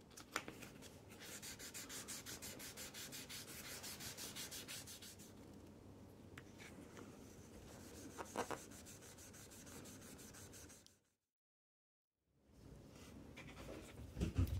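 A scratched watch crystal being polished by hand with sandpaper and compound: rapid, even back-and-forth rubbing strokes for about four seconds, then softer rubbing. A few light knocks from handling the watch case come near the end.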